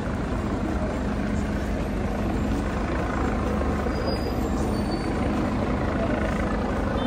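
A heavy vehicle's engine running steadily with a constant low hum.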